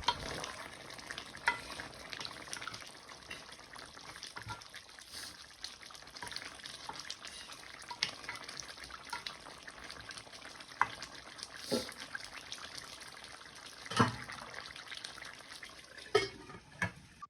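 Chicken cooking in a thick spicy korma gravy in a pan on low heat, with a steady sizzle and a few scattered knocks of a spoon against the pan as it is stirred.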